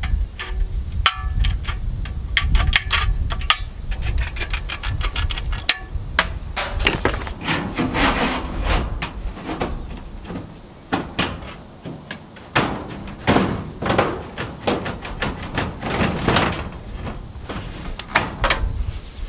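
Knocks and clicks of thin steel trim being handled and worked into place around a window on a steel-sided wall, with a quick run of rapid clicks a second or two in and irregular knocks after that.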